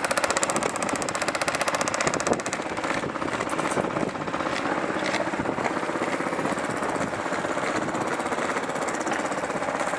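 Electric airsoft gun firing a rapid full-auto burst for about the first two and a half seconds, followed by scattered shots and further gunfire.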